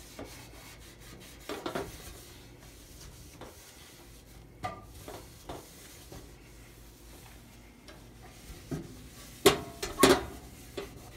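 Microfiber towel rubbing and scuffing over a white stove top in short irregular strokes. Two louder sharp bumps come near the end.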